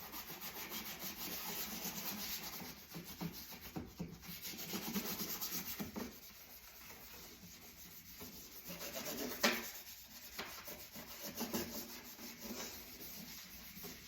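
Scrubbing the inside of a dishwasher by hand: quick back-and-forth rubbing strokes, louder for the first six seconds and softer after, with one sharp knock about nine and a half seconds in.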